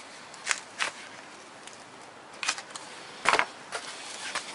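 Plastic power-tool housings being handled: a scatter of short clicks and knocks as a cordless rotary hammer is picked up and turned over. The loudest is a thud a little after three seconds in, as a tool is set down.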